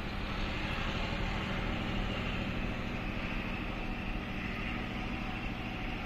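Diesel locomotive of a freight train running in the distance: a steady, even rumble.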